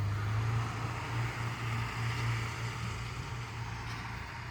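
Diesel locomotives passing at speed: a steady low engine drone with a rushing wheel-and-rail noise, easing off slightly near the end.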